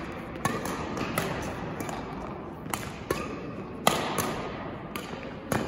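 Badminton rally: about six sharp racket hits on a shuttlecock, irregularly spaced, the loudest about two-thirds of the way through and near the end, against the steady hum of a sports hall.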